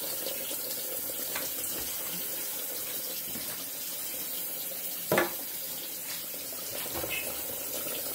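Covered pot of food simmering on an electric stove with a steady, watery hiss, and one sharp knock about five seconds in.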